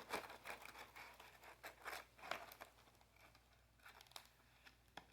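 Faint crunching of puffed microwave pork rinds being chewed, a quick run of sharp crackles that thins out after about three seconds.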